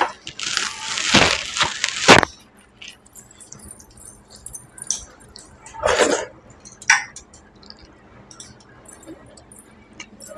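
Close-up eating sounds from a meal of rice and dal eaten by hand: sharp clinks of glass and steel dishware at the start and again about two seconds in, with wet squishing of rice being mixed between them. About six seconds in comes a short mouth sound as a handful of rice is eaten, then faint small ticks.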